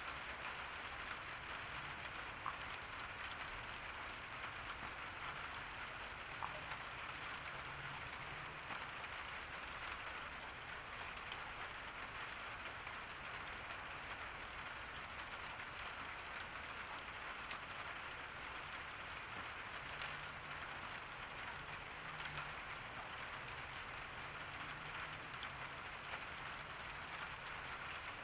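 Steady summer rain falling in a garden: an even hiss of rain with the odd sharper drip standing out.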